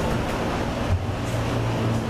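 Steady low rumbling background noise with a low hum, like wind and distant traffic heard outdoors, with a brief low bump about a second in.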